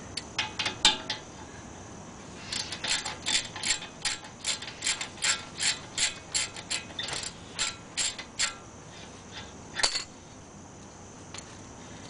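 Hand ratchet clicking as a 13 mm brake caliper mounting bolt is backed out. There are a few clicks at the start, then a long run of quick even clicks at about three or four a second, and a single louder click near the end.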